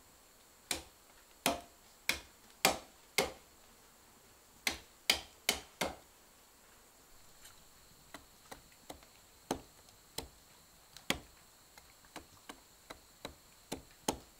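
Machete chopping into a wooden stick on a rotten log, cutting a sharpened point: sharp chops, heavy ones about every half second at first, then a quicker run of lighter taps in the second half.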